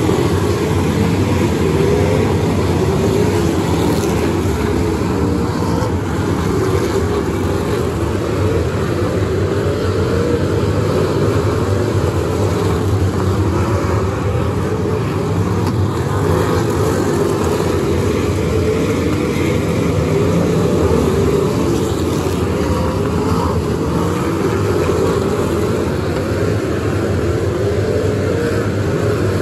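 A pack of figure-eight race cars' engines running at race pace, loud and continuous. Several engine notes overlap, their pitches rising and falling as the cars accelerate and lift off.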